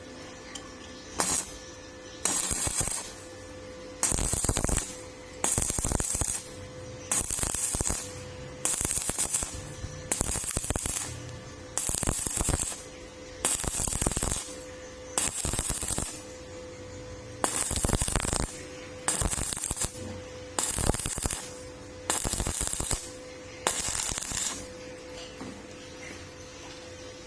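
Stick-welding arc crackling in a string of short bursts, about fifteen in all, each lasting around a second, as the arc is struck and broken again and again. A steady electrical hum sounds in the gaps between bursts.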